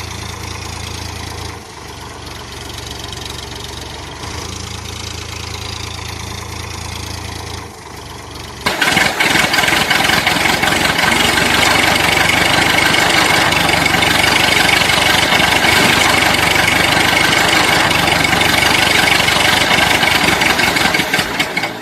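Tractor engine running. First comes a low idle hum that drops out for a couple of seconds and then returns. About eight and a half seconds in, a much louder engine noise with a high whine takes over and stays steady.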